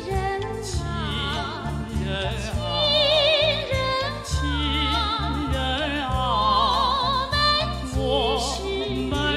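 A female singer sings a Chinese film song in a high, operatic voice with wide vibrato on the held notes, over a steady instrumental accompaniment.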